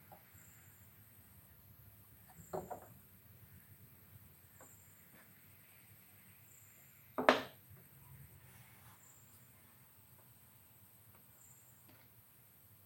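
Wooden pieces handled and set down on a table saw sled: a quick double knock of wood on wood about two and a half seconds in, a single sharper, louder knock about seven seconds in, and a few light taps between.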